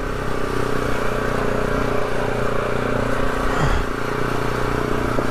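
Polaris off-road vehicle's engine running steadily, an even mechanical drone with no change in pace.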